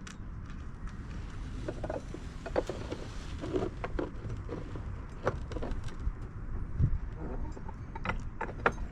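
Sharp clicks and knocks of metal sinker molds and tools being handled during lead casting, a few at a time, with a cluster near the end, over a steady low rumble.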